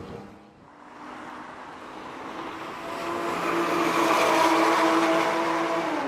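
Porsche Cayman 987.2's flat-six through a Soul Performance valved exhaust, driving past at speed on a race track straight. The engine note grows louder to a peak, then drops in pitch near the end as the car goes by.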